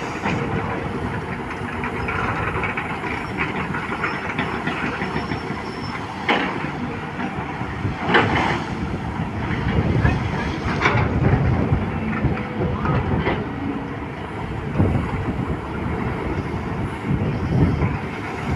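Volvo excavator working iron ore: the diesel engine runs steadily under a dense rattle and clanking. Several sharp knocks stand out, spread through the stretch, as metal strikes ore.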